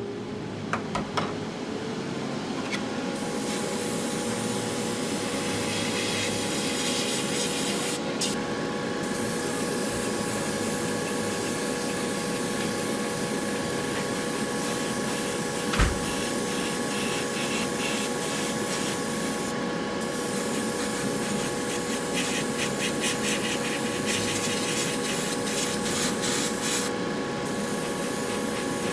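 Primer being sprayed onto a die-cast toy truck body: a steady hiss in long bursts with short pauses about eight, twenty and twenty-seven seconds in, over a motor running steadily with a steady hum. One short knock about sixteen seconds in.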